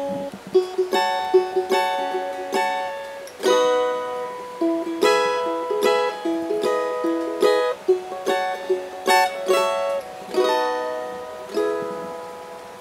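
Music: a plucked string instrument picking a bright, light melody of quick, clear notes.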